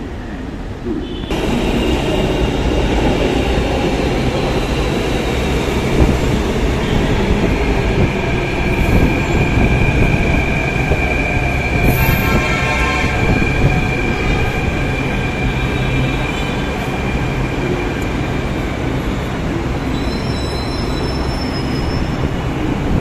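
Delhi Metro train at the platform: a steady rumble of rail noise with a high-pitched whine that comes in about a second in, is strongest midway and fades over the last few seconds.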